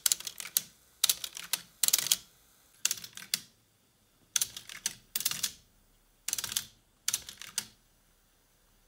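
The mechanisms of a Sony LBT-XB800AV double cassette deck clicking and clunking in short clusters of sharp clicks, about one cluster a second, about eight in all. They go quiet near the end.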